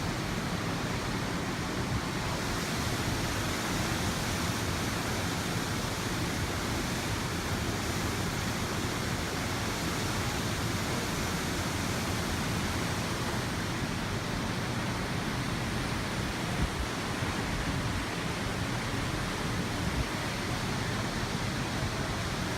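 Steady rushing noise of strong tropical-storm wind blowing across the microphone, with surf on a storm-surge tide beneath it.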